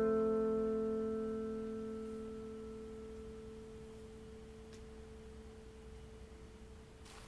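The final guitar chord of a song ringing out and fading slowly over several seconds, the upper notes dying away first until one lower note is left, faint.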